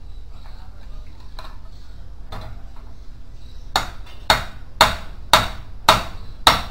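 Hammer striking the steel seat plate and gas-lift cylinder of a swivel chair clamped in a bench vise: six sharp, ringing metal blows about half a second apart in the second half, after a couple of faint knocks.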